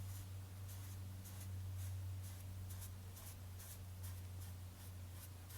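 Stiff paintbrush scratching across canvas in short, quick dabbing strokes, about two to three a second, over a steady low hum.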